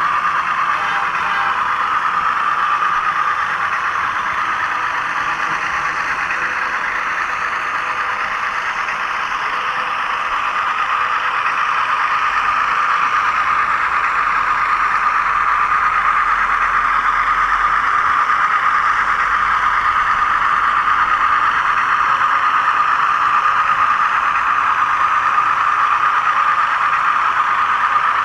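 HO scale 600 class model train running along the track, its small electric motor giving a steady whine with a light rattle of wheels on rail, heard close up from a camera riding on the train.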